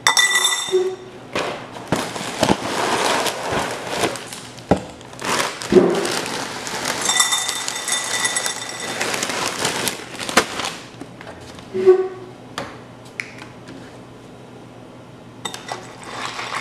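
A white ceramic bowl being filled at a counter: long stretches of pouring, with a spoon and dishes clinking against the bowl and scattered knocks.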